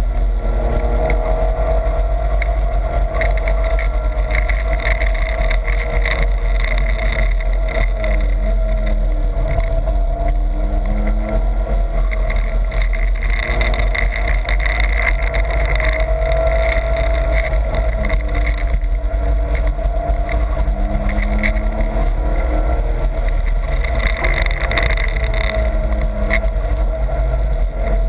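A BMW's engine running hard, heard from inside the cabin on a race track. The revs climb and fall again and again through gear changes and corners, over a steady low rumble of road and wind noise.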